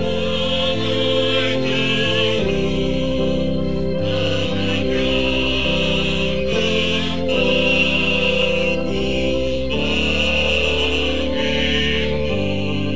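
Mixed church choir singing a hymn in held chords, over sustained low bass notes that change every second or two.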